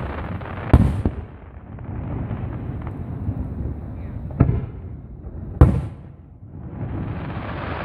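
Fireworks shells bursting: three sharp booms, one about a second in and two more around four and a half and five and a half seconds, over a steady rushing noise.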